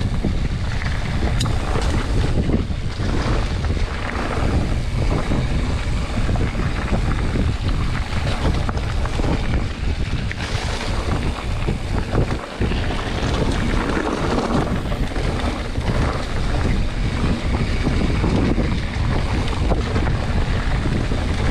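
Wind rushing over the camera microphone of a mountain bike riding a leaf-covered dirt trail. Tyre noise runs steadily underneath, with occasional short knocks from the bike over bumps.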